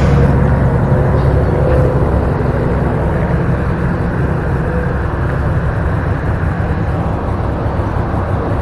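A heavy truck's diesel engine running steadily with a low, even rumble.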